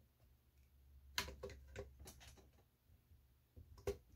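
Faint, scattered clicks and ticks of a desoldering tool's metal tip working at a feedback inductor's leads on an amplifier circuit board, about half a dozen, over a faint low hum.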